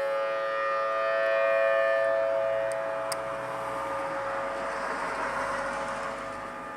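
Outdoor tsunami warning siren sounding a steady, unwavering tone, the alert signal of a tsunami warning. It swells a little in the first second or two, then slowly fades.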